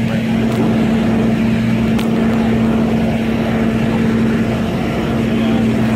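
A vehicle engine idling: a steady low hum that holds one pitch throughout, with a faint click about two seconds in.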